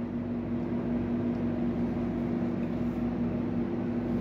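A steady machine hum with a constant low tone over a soft even hiss.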